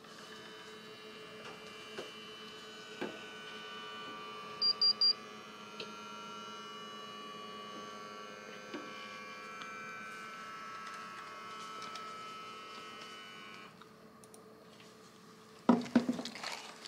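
Steady electrical hum of hospital equipment, with three quick high electronic beeps about five seconds in; the hum stops a few seconds before the end, followed by a brief louder noise.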